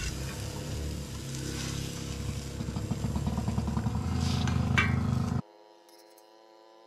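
Food sizzling on a camp-stove griddle as a metal spatula scrapes it, over a low rumble. About five seconds in it cuts off to quiet acoustic guitar music.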